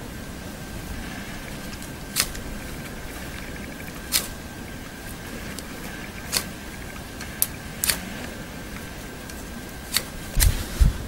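Firesteel (ferrocerium rod) struck with a scraper, about seven short sharp scrapes roughly every one to two seconds, throwing sparks into dry grass tinder to light a fire in damp conditions. A few low knocks near the end.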